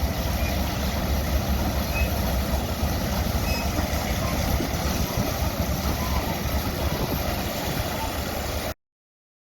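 Caterpillar crawler tractor running steadily as it tows a McCormick-Deering harvester, a dense low rumble of engine and machinery. The sound cuts off abruptly near the end.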